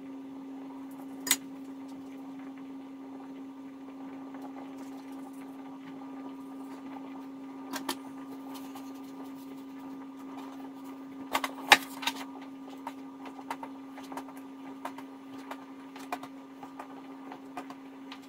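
Wooden rolling pin and knife knocking and tapping on a kitchen counter as vareniki dough is rolled out and cut: a few sharp knocks, the loudest pair just before the middle, over a steady low hum.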